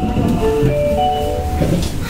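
A short electronic chime tune of several clear notes plays over the low steady hum of a 10 series Midosuji Line subway train.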